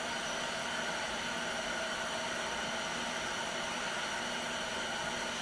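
A steady mechanical hum with an even hiss, unchanging throughout, with no knocks or tool clicks.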